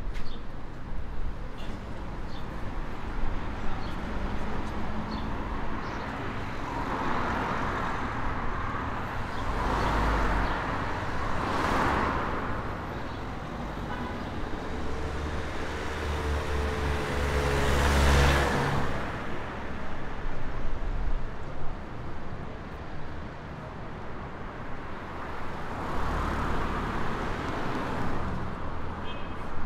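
City street traffic: cars pass one after another in swells of tyre and engine noise. A heavier vehicle's low engine rumble stands out a little past the middle.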